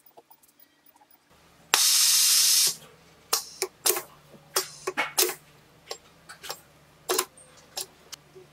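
Nozzle vacuum sealer's machinery: a low hum comes on about a second in, then a loud hiss of air lasting about a second, followed by a string of irregular sharp clicks.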